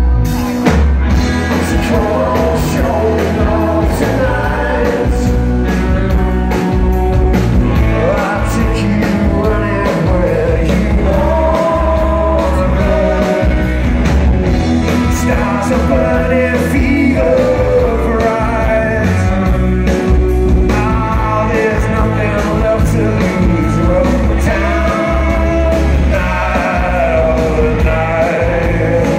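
Live rock and roll band playing loud, with electric guitars, bass and drums under a singing voice.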